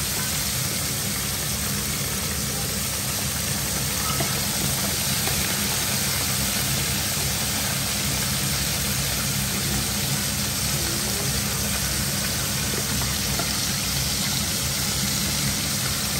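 Small whole fish deep-frying in a pan of hot oil: a steady sizzle, with a steady low hum beneath it.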